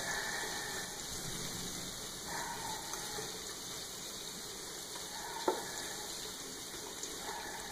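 Hot oil sizzling steadily in a stainless steel frying pan of breaded squid rings, with one sharp click of a utensil against the pan about five and a half seconds in.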